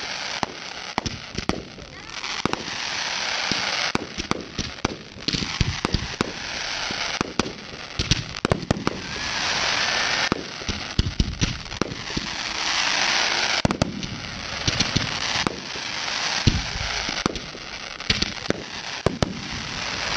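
Professional fireworks display: a rapid, irregular volley of aerial shells launching and bursting with sharp bangs. Between the bangs, a crackling hiss swells up several times.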